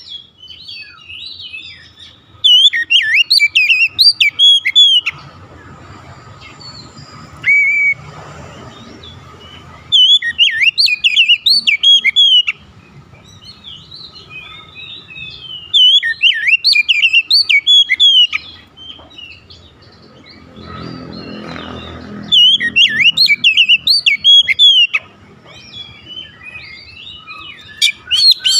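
Oriental magpie-robin (kacer) singing loud, fast phrases of varied whistles and chirps, in bursts of two to three seconds with short pauses between, about six times.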